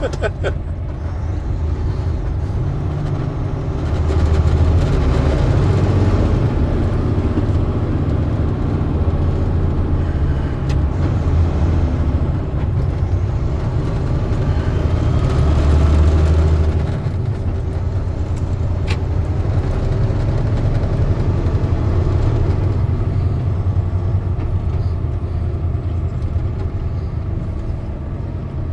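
Truck engine and road noise heard from inside the cab, a steady low rumble that swells louder twice: a few seconds in and again around the middle.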